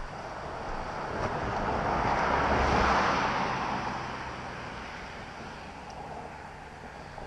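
A car passing by on the road, its sound swelling to a peak about three seconds in and then fading as it drives away.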